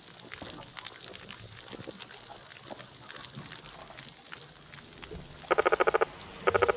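Underwater hydrophone recording of a degraded coral reef: sparse faint clicks and crackle over a steady hiss. Near the end come two short bursts of a rapid, pulsing buzz.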